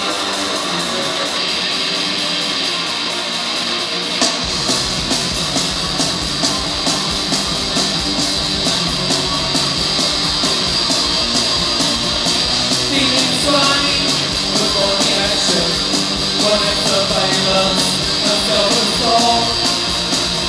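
Live rock band playing: electric guitar on its own at first, then about four seconds in the drums and bass guitar come in with a steady beat.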